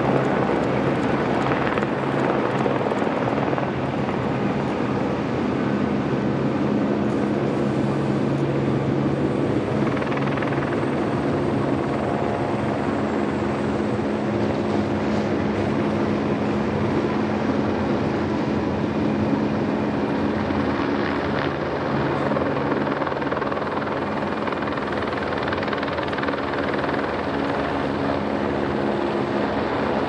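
Steady, continuous mechanical drone with several low humming tones that shift in pitch now and then, from a large vehicle.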